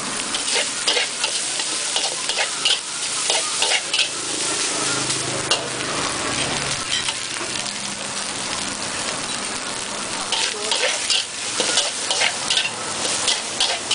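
Fried rice with egg and vegetables sizzling in a hot wok while a metal spatula stirs and tosses it, scraping and clacking against the pan. The clatter comes thickest in the first few seconds and again near the end, with steadier sizzling in between.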